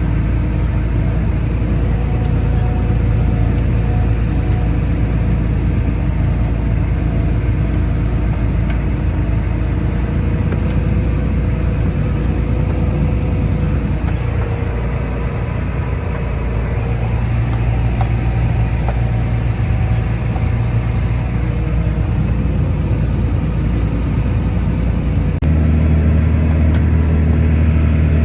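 John Deere tractor engine running steadily under load while pulling a grain cart. Near the end its pitch shifts to a new steady note and it gets slightly louder.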